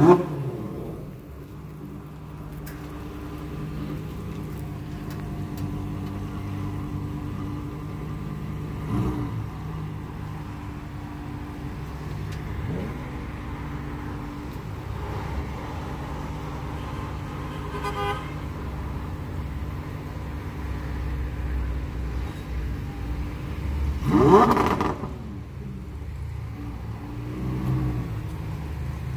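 Car engine idling steadily, revved briefly at the start and revved again near the end with a rising then falling pitch.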